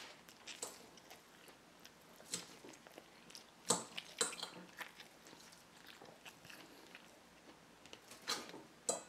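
A metal fork cutting into a grilled grouper steak and clicking and scraping on the plate, in scattered short strokes, the sharpest a little under four seconds in.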